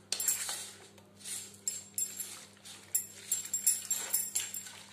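A steel spoon stirring a thick, wet mix of crushed noodles and flour batter in a stainless steel bowl: irregular scraping strokes with sharp clinks of metal on metal.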